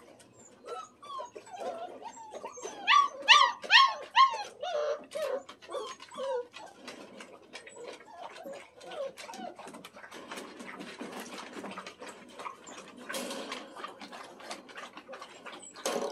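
Standard poodle puppies whimpering and yelping: a quick string of high, rising-and-falling cries, loudest a few seconds in, then dying down. After that comes a patter of small clicks and rustling.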